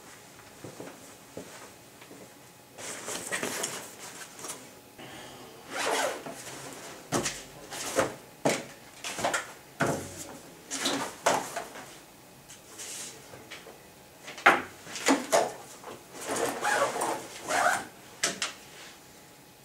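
A backpack being handled and packed: a series of short rustling and zipper sounds with a few light knocks of items set on a table.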